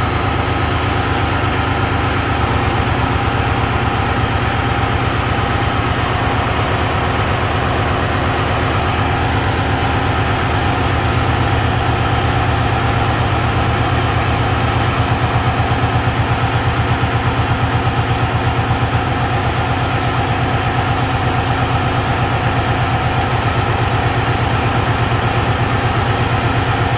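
Freightliner Columbia semi truck's diesel engine idling steadily during an injector and cylinder test, with an even, unbroken beat: the cylinders are firing well.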